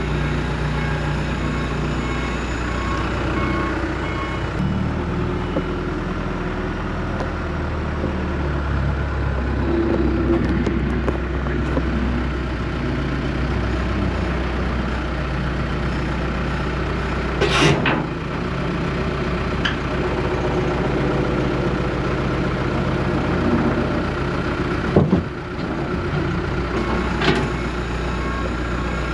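Tractor engine running steadily, with a few sharp knocks about two-thirds of the way in and near the end.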